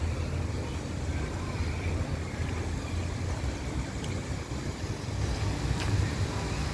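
Low, steady outdoor rumble with a few faint clicks.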